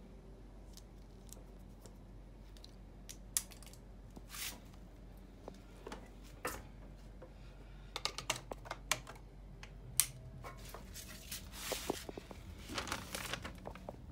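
Scattered clicks, taps and rustles of an electric oven's power cord and plug being handled and pushed into a wall socket, with a sharp click about two-thirds of the way through.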